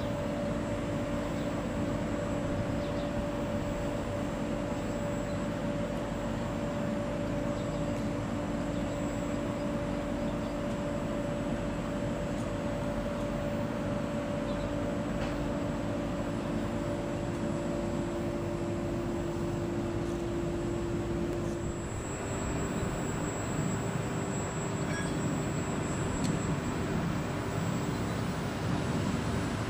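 Steady vehicle running noise with a droning whine made of two held pitches; about two-thirds of the way through the whine changes to a single slightly different pitch while the noise carries on.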